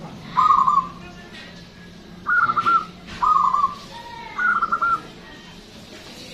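Local-strain zebra dove (perkutut) cooing: four short phrases, each a coo running into a quick rolling trill.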